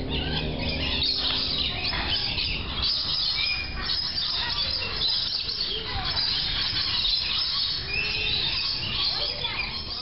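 Many birds chirping and calling at once in a walk-in aviary, a dense, busy chatter of high chirps with a couple of short clear whistled notes, over a low rumble.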